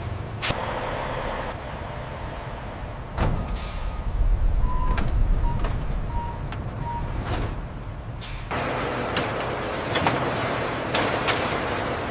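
Industrial machinery running with sharp clicks and mechanical knocks, a few short beeps around the middle, and a denser run of noise starting near the end.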